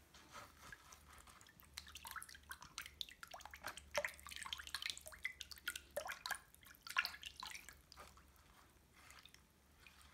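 A hand swishes through water in a basin to dissolve green foot-bath salt. It makes a busy run of small splashes and drips that is thickest in the middle and tapers off over the last couple of seconds.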